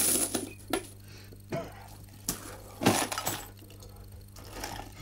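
A pile of coins clinking as they are tipped from a cloth bag and handled on a table: a string of separate metallic clinks.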